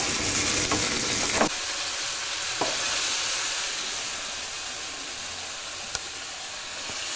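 Sliced mushrooms sizzling in a frying pan in bacon fat, with a few knocks and scrapes of a wooden spatula against the pan in the first few seconds. The sizzle eases a little toward the end.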